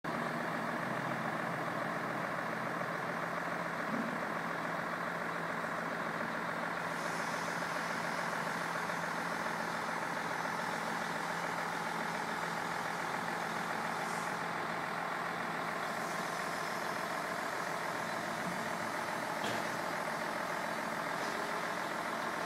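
Heavy machinery engine on a building site running steadily, an unbroken drone with a constant low hum.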